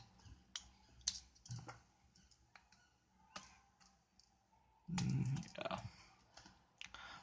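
Scattered light clicks and taps of hands opening and handling an earphone retail box and its packaging, with a short cluster of handling noise about five seconds in.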